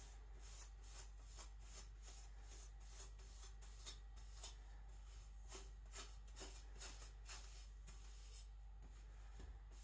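Faint, quick, scratchy strokes of a carbon-steel gyuto's edge, roughly two a second, thinning out near the end.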